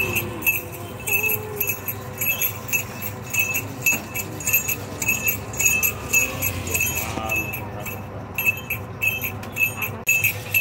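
Sugarcane juice crushing machine running, the small bells fitted to it jingling in a steady rhythm about three times a second over a steady hum, with a short break in the jingling near the end.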